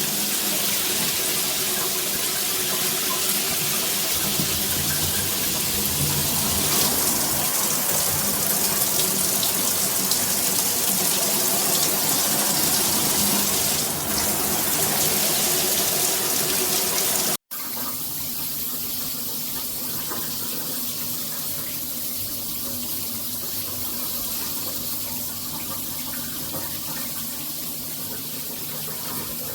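Water spraying steadily from a Hibbent shower head, as a hiss of running water. About 17 seconds in it breaks off for an instant and resumes a little quieter.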